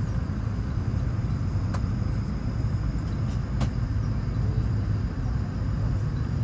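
Steady low rumble inside a parked airliner's cabin, the air-conditioning and aircraft systems running while it waits at the gate, with two faint clicks about two and three and a half seconds in.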